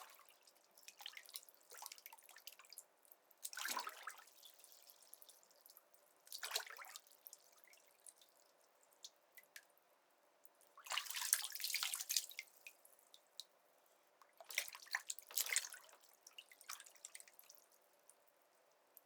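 Bathwater splashed by a person sitting in a bathtub: about five separate splashes a few seconds apart, the longest about two-thirds of the way through, with small drips and trickles between them.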